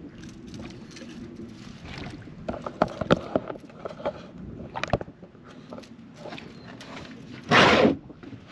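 Scattered sharp knocks and clicks from fishing tackle against the boat as a hooked catfish is brought alongside, over a low steady background. Near the end comes a short, loud rush of noise about half a second long.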